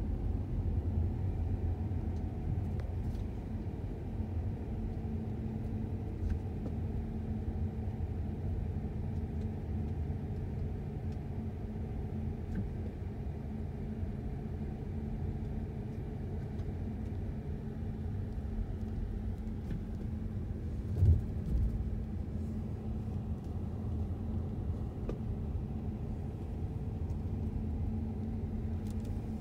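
Car driving slowly, heard from inside the cabin: a steady low rumble of engine and tyres with a faint steady hum. A single low thump comes about two-thirds of the way through.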